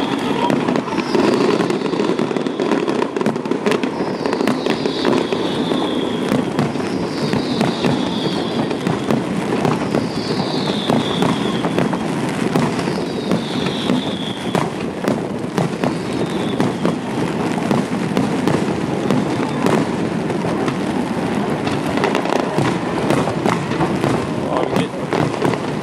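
Fireworks display: a dense, continuous run of bangs and crackling. A high falling whistle repeats about every second and a half during the first two-thirds.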